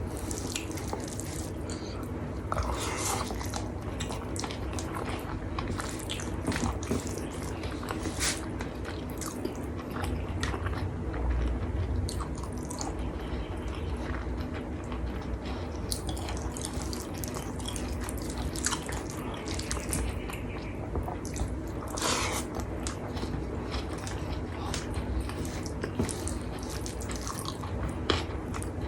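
Close-miked eating sounds of a person chewing a rice-and-curry meal: wet mouth clicks and lip smacks, with scattered short crackles, over a steady low hum.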